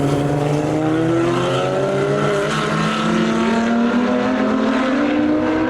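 Three cars' six-cylinder engines running together through a corner, their overlapping notes slowly rising as they accelerate away.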